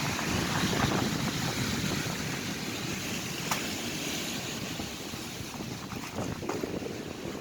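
Sea surf washing on a beach, with wind rumbling on the microphone.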